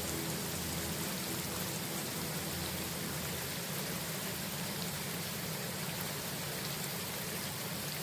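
Steady rain: an even hiss of falling drops.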